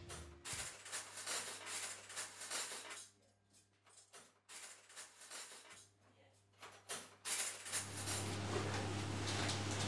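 Metal cutlery clinking and rattling as it is picked out of a kitchen drawer, in a few short spells of clatter with pauses between. A low steady hum comes in near the end.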